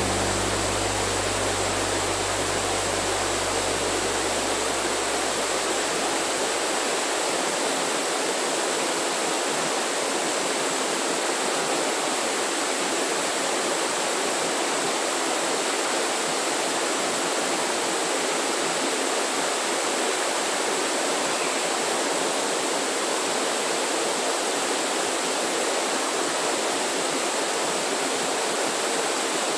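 Steady, even rushing noise of water, such as a stream or rain. Low music notes fade out under it over the first several seconds.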